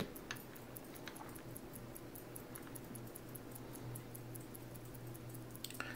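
Faint, quick light ticks over a low steady hum, from small metal parts and tools being handled on a tiny watch movement.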